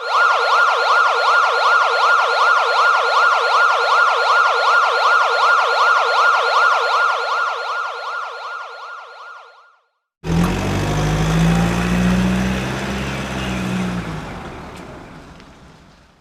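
Emergency-vehicle siren in a fast warble, rising and falling about three to four times a second and fading before it stops about ten seconds in. After a short gap a vehicle's low engine-like rumble with road noise starts suddenly and fades away.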